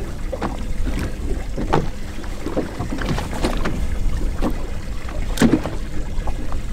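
Small waves slapping and knocking against the hull of a drifting fishing boat, irregularly, one or two a second, with a stronger slap about five and a half seconds in, over a steady wind rumble on the microphone.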